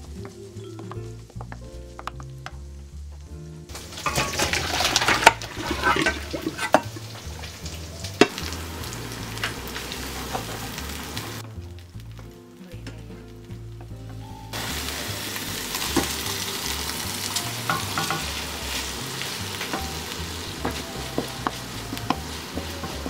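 Pesto and chopped sundried tomatoes sizzling in a nonstick pan as they are stirred with a wooden spoon, with a few light scrapes of the spoon. The sizzling starts a few seconds in, drops out for about three seconds in the middle and comes back louder. Background music plays throughout.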